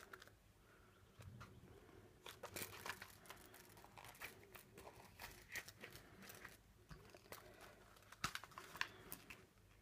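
Faint, irregular rustling and small clicks of a leather pouch being handled while it is hand-stitched, the needle and thread drawn through the stitching holes.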